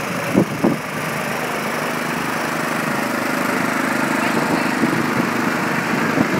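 Small farm tractor's engine running steadily as it tows a float past at walking pace, with two sharp knocks close together near the start.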